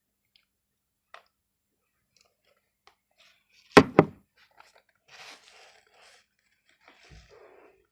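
Two sharp knocks in quick succession about four seconds in, followed by light rustling and crinkling as craft materials are handled.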